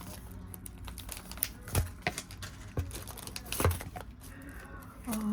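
Small plastic packets of nail-art decorations crinkling and rustling as they are handled, broken by several sharp clicks and taps, the loudest about two seconds in and again near four seconds. A short steady low tone begins right at the end.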